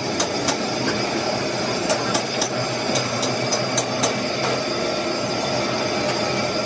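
Steady running noise of workshop machinery, dotted with irregular sharp metallic clicks and taps about once or twice a second.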